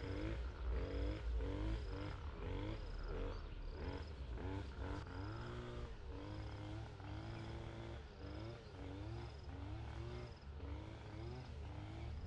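A chorus of animals calling from a wetland: many overlapping, short rising-and-falling calls, about two a second, with a thin high chirp repeating among them. A steady low rumble runs underneath.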